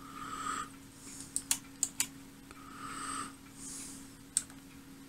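Front-panel switches and knobs of a Voltcraft 2040 analogue oscilloscope being operated: a few short, sharp clicks, four in quick succession about a second and a half in and one more near the end. Soft breaths come between them, over a steady low hum.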